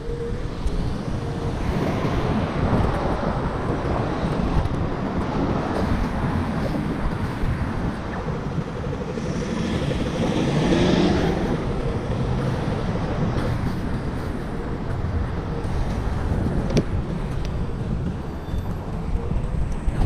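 Continuous rumble of wind and road noise from riding a Xiaomi Mijia Pro electric scooter, with road traffic around. The noise swells louder about halfway through, and there is a single sharp click near the end.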